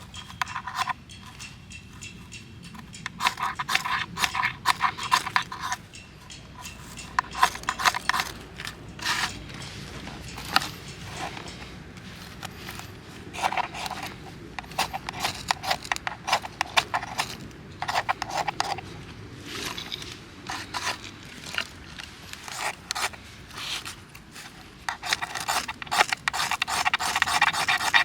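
Repeated hand scraping strokes, coming in irregular runs, some with a faint ringing tone; a denser, louder run near the end.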